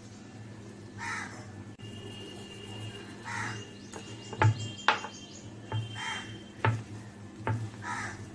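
A bird calls about four times, roughly every two seconds. From about halfway through, several sharp clicks and knocks come from the cook salting the chopped radish greens in a plastic strainer and handling them, just before mixing them by hand.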